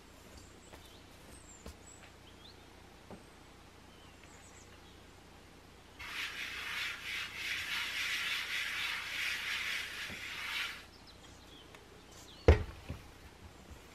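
A hand sweeping flour across a wooden cutting board: a dry, uneven swishing that starts about six seconds in and lasts about five seconds. Near the end a stainless steel mixing bowl knocks down on the board with one sharp clunk, the loudest sound.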